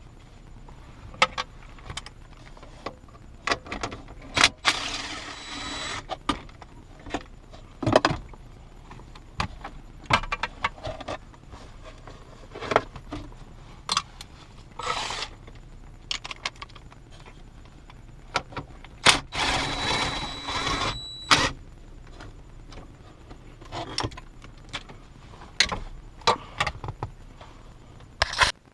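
Hand tools loosening and removing the shifter's mounting bolts: scattered metallic clicks and clinks, with two longer scraping stretches about five seconds in and about twenty seconds in.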